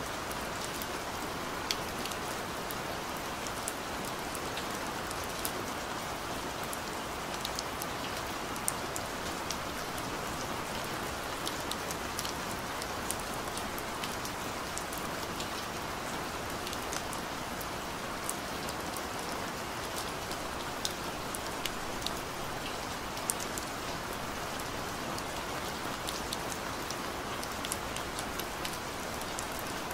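Rain: a steady, even hiss with many scattered sharp drop ticks. It is used as the masking track of a subliminal audio.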